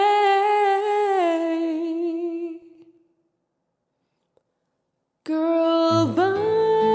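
A solo voice holds a long sung note, wavering and sliding down before fading out about two and a half seconds in. After a couple of seconds of silence the voice comes back with another held note that dips and then climbs to a higher pitch. Low plucked accompaniment notes join near the end.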